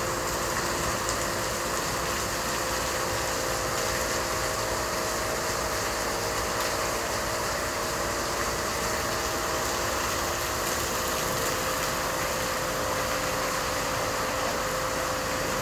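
Steady hiss of heavy rain with the steady hum of an idling engine underneath.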